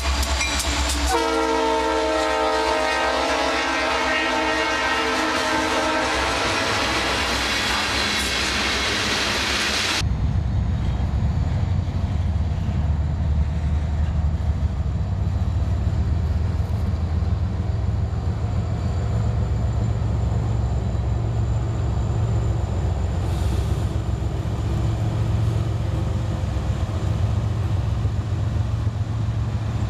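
Multi-chime air horn of a CSX diesel freight locomotive blowing as it passes close by, its chord dropping in pitch about a second in as the locomotive goes past; it cuts off suddenly about ten seconds in. After that, a steady low rumble of a freight train rolling past, with diesel locomotives coming up.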